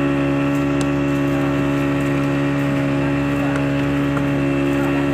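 Small fishing boat's engine running at a constant speed, a steady drone that holds one pitch throughout.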